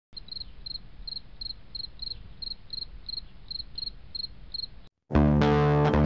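High chirps repeated evenly, about three a second, over a low rumble. They cut off about five seconds in, and loud guitar music starts a moment later.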